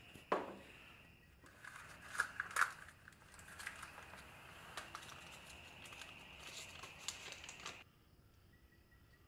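A thump, then a small foil-and-plastic wrapper being handled, crinkling and tearing, with a few sharp crackles a couple of seconds in. The sound drops away to quiet near the end.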